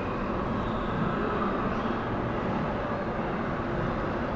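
Steady rumbling background noise with no distinct events, even throughout.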